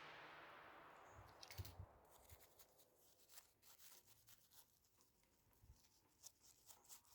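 Near silence: background music fading out over about the first second and a half, then faint, scattered clicks and taps of small plastic radio parts being handled as the selector buttons are fitted back.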